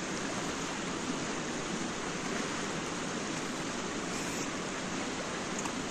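River water rushing steadily, an even unbroken noise.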